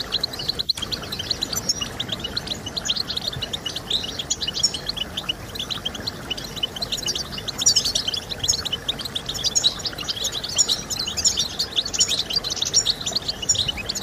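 European goldfinch singing: a fast, unbroken run of high twittering notes.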